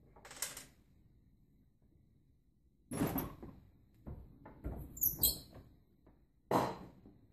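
A door being opened and shut: a handful of short scrapes and knocks, with a brief squeak about five seconds in.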